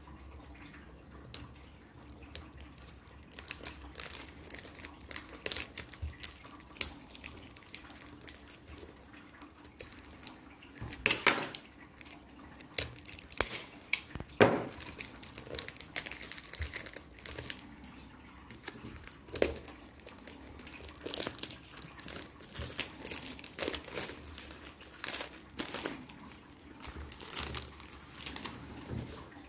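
Clear plastic shrink-wrap being torn open and peeled off a Blu-ray box, crinkling in irregular bursts, with two louder rips about halfway through.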